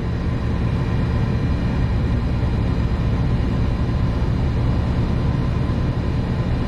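AAON rooftop air-conditioning unit running in cooling, a steady, loud machine hum with several steady low tones.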